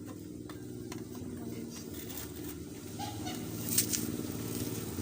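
An engine running steadily in the background and growing louder, with a few light clicks of handling.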